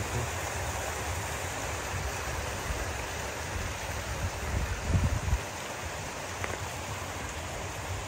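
Steady rush of cold water flowing through a concrete trout-farm raceway, with an uneven low rumble under it and a short louder thump about five seconds in.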